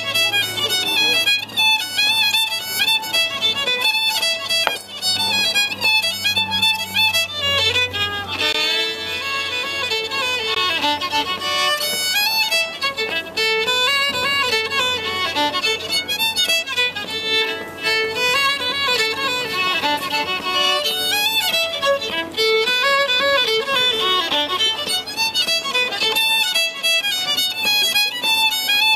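Scottish fiddle music: a fiddle playing a quick, busy tune, with a low held note underneath for roughly the first eight seconds.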